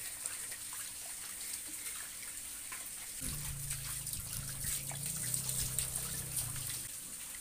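Water running from a garden hose and splashing over a butchered pig carcass, with small clicks and taps from handling the meat. A low steady hum comes in about three seconds in and stops shortly before the end.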